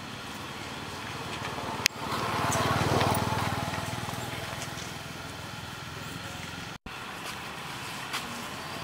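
A small-engine motor vehicle passing, growing louder about two seconds in after a sharp click and fading away over the next few seconds, over a steady outdoor hiss. The sound cuts out for an instant later on.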